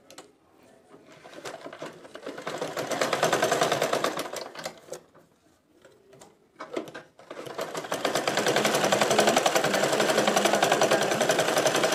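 Domestic sewing machine stitching elastic onto fabric, its needle mechanism rattling quickly and evenly. It picks up speed about a second in and stops about halfway, gives a short burst, then runs again steadily at speed.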